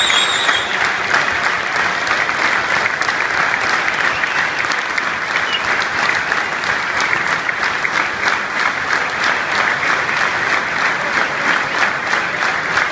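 Large stadium crowd applauding steadily, a dense, sustained clapping.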